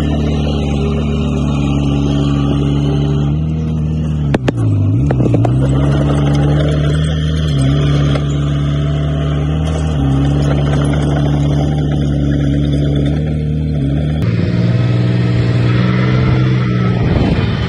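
Diesel engine of a Komatsu D20P small bulldozer running steadily, its pitch dipping and recovering around four to five seconds in, with a couple of sharp knocks, and again near the end. The engine note shifts abruptly about fourteen seconds in.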